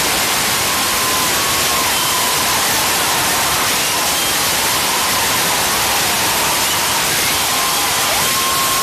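Concert crowd applauding and cheering after a song: a dense, steady wash of clapping with a few held shouts rising above it.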